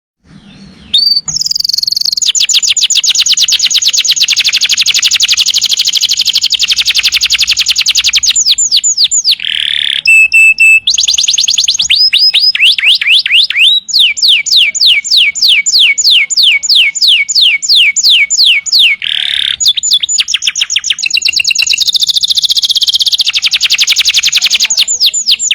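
Canary singing a loud, almost unbroken song of fast trills and rolls: rapid runs of repeated sweeping notes, a brief steady whistle, and a slower passage of about five notes a second.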